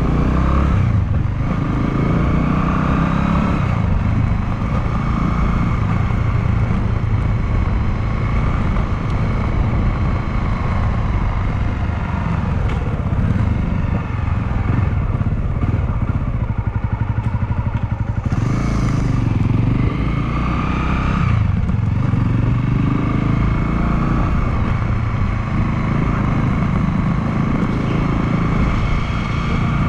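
Honda Clubman motorcycle's single-cylinder engine running as the bike is ridden. The engine note climbs about two-thirds of the way through, then drops off sharply.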